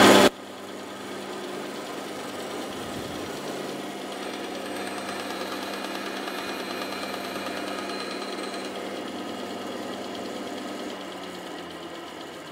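Woodworking bandsaw running with a steady hum while a small wood block is fed into the blade for a light trimming cut. A louder stretch of sawing cuts off sharply just after the start, and the sound eases slightly near the end.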